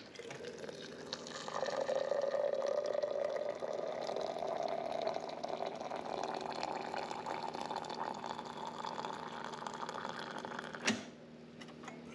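Liquid running into a container for about nine seconds, its pitch slowly rising as the container fills, then stopping with a click near the end.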